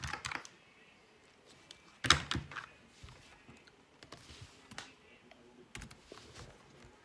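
A few light clicks and knocks of hands working on a tabletop, the loudest cluster about two seconds in.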